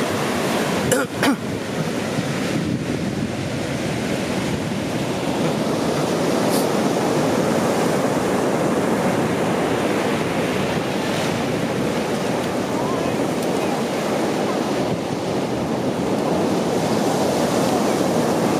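Ocean surf breaking and washing onto the shore in a steady roar of noise, with two brief sharp knocks about a second in.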